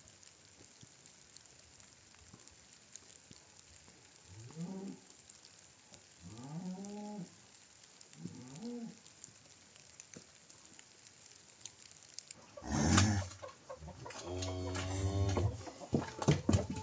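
Farm animals calling: three short calls that rise and fall in pitch, about two seconds apart, then a loud call about thirteen seconds in and a longer steady call after it.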